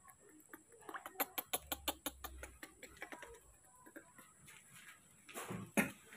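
Small splashes, drips and clicks of water in a plastic basin as a newborn monkey is bathed by hand, with a quick run of sharp clicks in the first half. A louder splash comes near the end.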